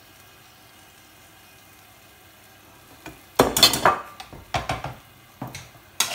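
After about three quiet seconds, a cluster of clinks and knocks from a metal serving spoon and a ceramic bowl being handled and set down, the loudest about three and a half seconds in, followed by a few single knocks.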